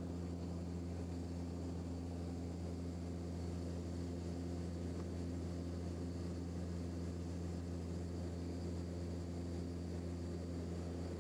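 Steady low drone of a turboprop airliner heard from inside the passenger cabin: a deep hum with several steady tones over a faint hiss, holding one pitch throughout.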